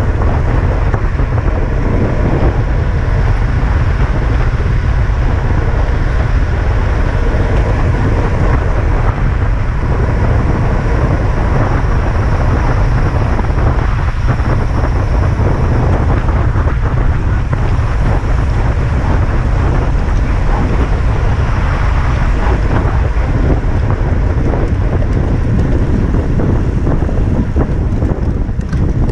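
Steady, loud wind rumble on a bicycle-mounted camera's microphone while the road bike rides at speed, with a noisy rushing haze of air and road noise above it.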